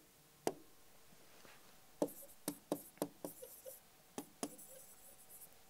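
Marker tapping and scraping on a writing board as a word is written: a string of short, sharp clicks, bunched between about two and three and a half seconds in.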